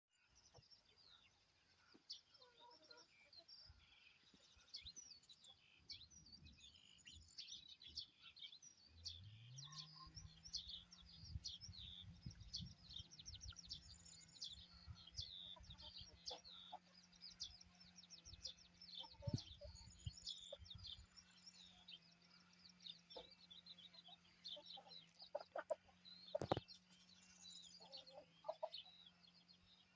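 Many birds chirping and calling in quick, overlapping notes. About nine seconds in, a low hum rises in pitch and then holds steady beneath them, with some low rumbling for a while after it starts.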